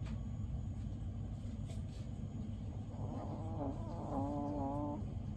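Sleeping chihuahua snoring over a steady low rumble, with a wavering pitched, whistle-like sound for about two seconds a little past halfway.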